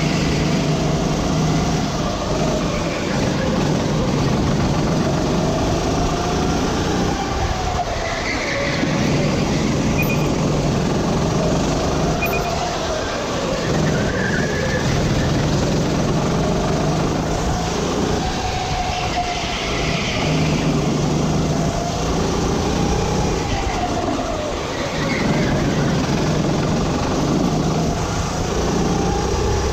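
Sodi RT8 rental kart's four-stroke engine running at racing speed, close up from the driver's seat. The revs climb and then drop again over and over as the kart accelerates out of corners and slows into the next.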